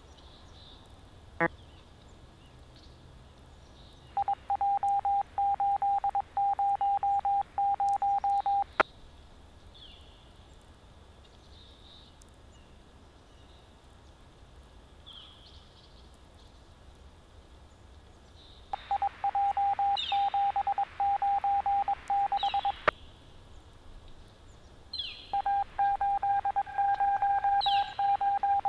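Police radio scanner receiving three bursts of a steady mid-pitched tone beeping on and off about twice a second over a crackling hiss, with low static between the bursts.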